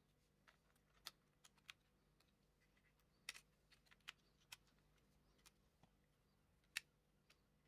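Faint, scattered clicks and taps of fingers, film cartridge and film leader against the plastic body of an open Leica AF-C1 compact camera while 35 mm film is loaded, with one sharper click near the end.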